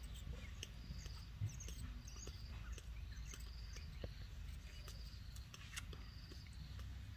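Faint soft clicks and smacks of a baby vervet monkey suckling from a teat on a feeding syringe, with a faint high chirp repeating about every second and a bit.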